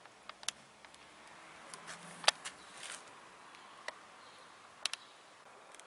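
A few scattered light clicks and taps from handling small parts at the motorcycle's brake lever and switch housing. The sharpest click comes a little over two seconds in, and a quick double click comes near the end.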